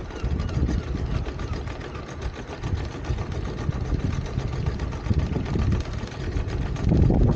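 Sailing yacht's inboard engine running steadily at low revs while motoring, a rapid even chugging.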